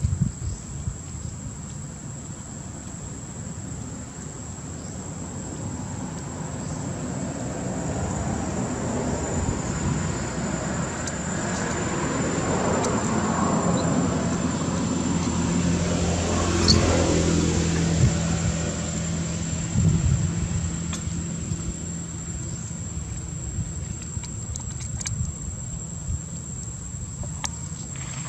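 A motor vehicle passing by: its engine hum grows slowly louder, is loudest about two-thirds of the way in, then fades away. Over it runs a thin, steady, high insect drone.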